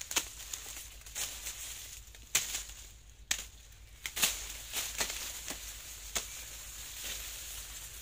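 Machete hacking at sugarcane stalks: about ten sharp chops at uneven intervals, with dry cane leaves rustling and crackling between them.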